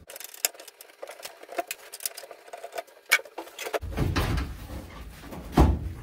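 Small metallic clicks and ticks of a screwdriver and screws at the bench seat back's mounting clips, then heavier rumbling bumps as the seat back is worked loose and lifted, with a loud thump near the end.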